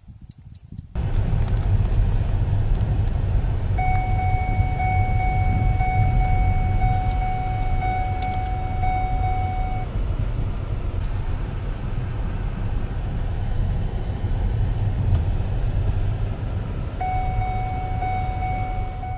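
Vehicle driving, heard from inside the cabin: a loud, steady low rumble of engine and road noise that starts suddenly about a second in. A steady high tone comes in about four seconds in, lasts about six seconds, and returns near the end.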